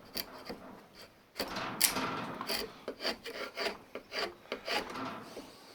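Hand tool scraping down a wooden axe handle held in a vise, shaving the handle in repeated short strokes about two a second, with one longer stroke about a second and a half in.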